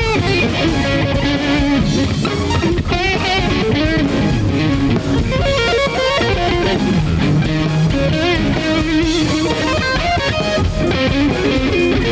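Live rock band playing an instrumental passage, an electric guitar lead with bending, wavering notes over the rest of the band.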